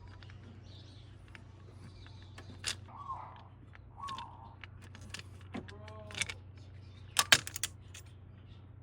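Scattered clicks and small knocks over a steady low hum, with a short arching whine about six seconds in and a quick run of sharp metallic clinks about seven seconds in, the loudest sound.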